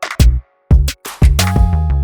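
Background music: an electronic track with a drum-machine beat, kick drum hits and sustained synth tones.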